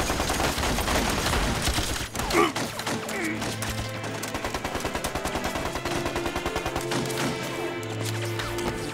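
Automatic gunfire, a continuous fusillade of rapid shots that settles into a fast, even rhythm of sustained automatic fire, with a dramatic film score coming in underneath after about three seconds.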